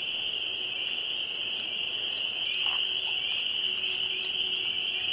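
Steady high-pitched chorus of small frogs calling without a break, with a few faint crackles of dry leaves or husks being handled.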